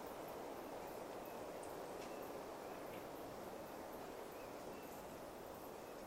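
Pine-forest ambience: a steady, even hiss with a few faint short chirps from birds and scattered faint high ticks.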